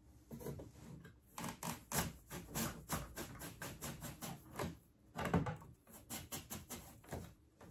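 Irregular clicking, rattling and knocking of plastic and sheet metal as the electrical control panel of a Carrier ceiling cassette air conditioner is handled and guided down through the middle of the unit, with a few louder knocks about two seconds in and a little after five seconds.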